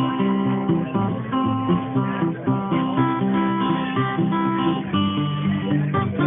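Solo acoustic guitar playing a tune: a steady run of notes and chords over a moving bass line.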